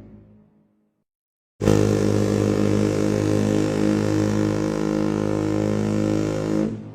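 SS America's horn: the end of one blast fades away, then after a short gap a second long, deep blast sounds, a chord of several low tones held steady for about five seconds before stopping with a short echoing fade.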